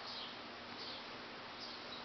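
Ceiling fan running with a faint high squeak repeating about every three-quarters of a second, over a low steady motor hum.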